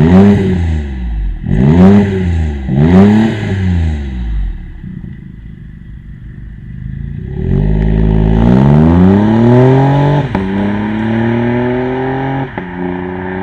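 BMW F70's B38 three-cylinder turbo engine through a valved aftermarket cat-back exhaust: three quick throttle blips, a few seconds of idle, then a long pull rising in pitch, with the pitch stepping down twice near the end as it changes up a gear.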